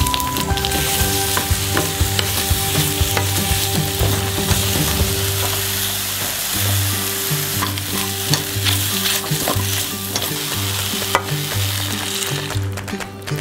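Vegetables sizzling as they fry in oil in a stainless steel pot, with a wooden spatula stirring and clicking against the pot. Near the end the sizzle dies down as soy milk is poured in.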